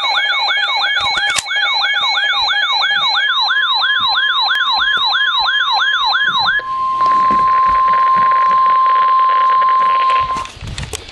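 Weather radio receivers sounding their electronic alert sirens: a rapid warble of downward pitch sweeps, about three a second, over steady tones. A little past halfway the sirens stop, and NOAA Weather Radio's steady 1050 Hz warning alarm tone plays alone through static for about four seconds. A few clicks come near the end.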